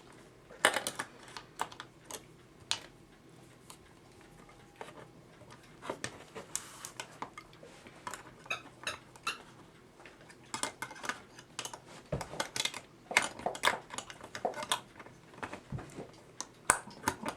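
Irregular light clicks and metallic taps of hand-work on a clock mainspring and C-clamp, as the hand-compressed spring is clamped, with short quick runs of clicks here and there.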